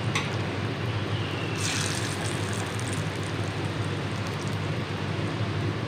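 Lauki (bottle gourd) kofta balls deep-frying in hot oil in an iron kadhai: a steady sizzle and bubbling over a low steady hum. A brief scrape about one and a half seconds in.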